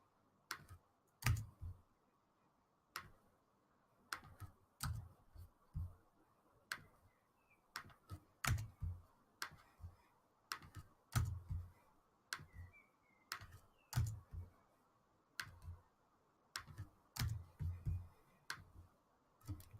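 Computer mouse clicks and keyboard keystrokes during copying and pasting, faint and irregular, coming singly or in quick clusters every second or so.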